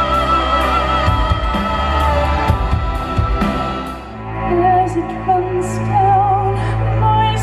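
Live rock band with a woman singing a long held note with vibrato over drums and cymbals. About four seconds in the drums stop and a quieter passage begins: a steady low note sustained under her voice.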